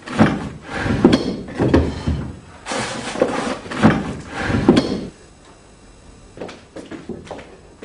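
Drawers and doors of a wooden sideboard being pulled open and banged shut as someone rummages through it, a run of knocks and bangs for about five seconds, then only a few faint knocks.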